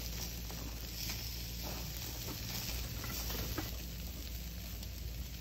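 Eel pieces sizzling on the wire rack of a portable gas grill, a steady hiss of fat frying, with a few light clicks of tongs against the grate.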